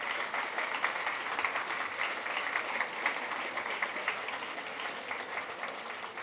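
Audience applauding, a dense patter of many hands clapping that slowly dies down near the end.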